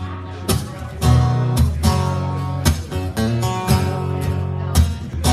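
Solo acoustic guitar strumming chords, with a new stroke about every half second and the chords ringing between strokes.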